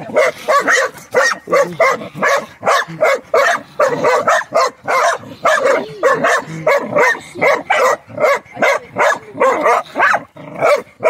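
A hunting dog barking at an animal in its burrow while digging at the hole: short barks in a continuous run, about three a second.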